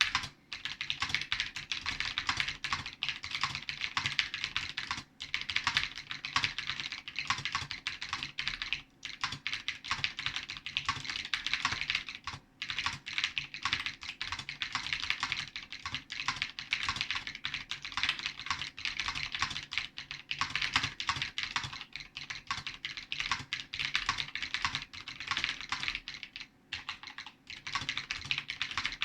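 Typing on an Ampex 219 keyboard with linear white 'space invader' switches: a fast, continuous stream of key clacks, broken by a few brief pauses.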